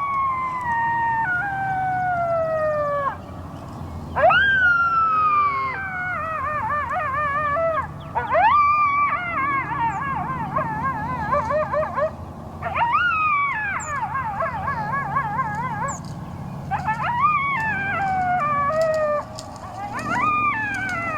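Coyote howls: a series of about six long howls, each rising sharply and then sliding slowly down in pitch, several breaking into a fast wavering warble as they fall.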